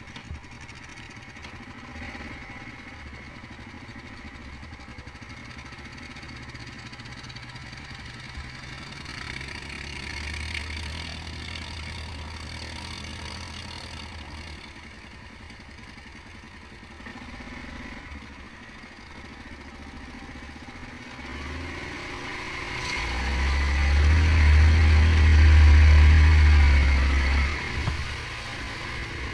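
Yamaha Grizzly 700 ATV's single-cylinder engine running steadily while riding along a wet trail and through standing water. Near the end it gets noticeably louder for a few seconds, then eases off.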